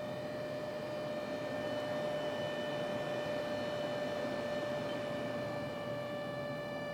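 Lexus LX570 cabin blower fan running: a steady rush of air with a steady whine over it. It is the fan noise that comes up in cold weather, here at 28°F outside.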